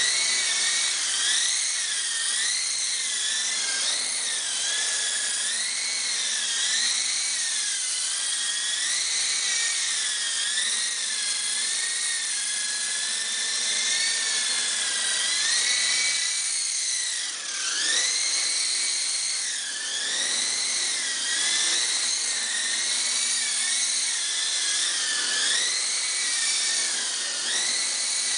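Blade CX3 coaxial RC electric helicopter in flight: a continuous high-pitched electric motor and rotor whine that wavers up and down in pitch every second or two as the throttle is worked, dipping briefly and climbing back about 17 seconds in.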